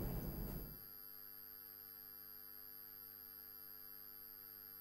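Faint, steady electrical mains hum made of several stacked tones, left bare once a wash of background noise fades out in the first second.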